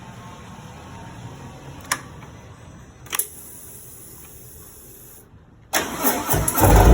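Two short clicks, then near the end the Harley-Davidson Road Glide's V-twin cranks and fires, starting loud through straight-through Shark Road 4.5-inch exhausts with no baffles.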